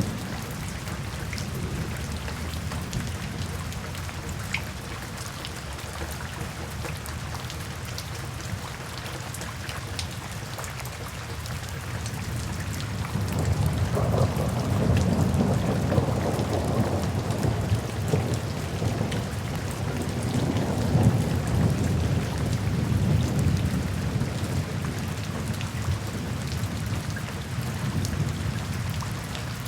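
Steady rain falling, with a long low rumble of thunder rolling in about halfway through, swelling and then fading before the end.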